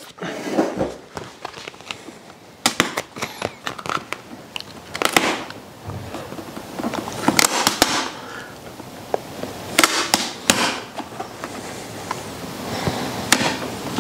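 Adhesive vinyl decal and its paper backing crackling and rustling as they are peeled apart and handled. Irregular crisp crackles run throughout, with a few louder rustles about five, seven and ten seconds in.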